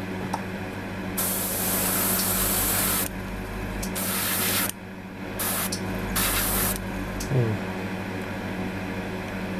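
Airbrush spraying paint in four bursts of hiss: the first about two seconds long, the rest shorter, under a steady low background hum.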